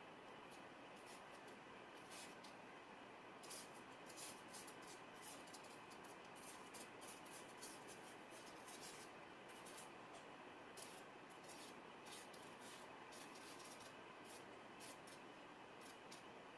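Faint scratchy strokes of a long-bristled hog-hair flat brush laying thin, turpentine-thinned oil paint onto textured oil-painting paper. Many short strokes come in irregular succession over a faint steady hiss.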